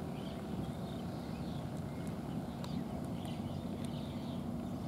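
A cat eating from a plastic tray: faint, irregular chewing clicks over a steady low outdoor rumble.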